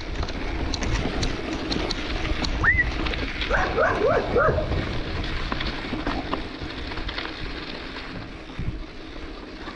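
Wind rushing over the microphone and bicycle tyres rolling on a dirt road. About three and a half seconds in, a dog barks four times in quick succession, just after a brief rising whistle-like note.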